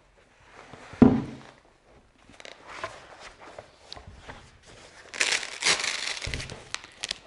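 A single thud about a second in, then scattered small knocks, and from about five seconds a dense rustling and crinkling as the padded nylon foil bag with its clear plastic pocket is handled.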